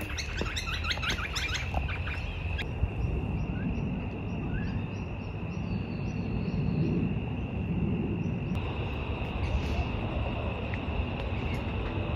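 Birds chirping: a quick run of repeated chirps in the first couple of seconds, then scattered smaller calls, over a steady low background noise and a thin steady high tone.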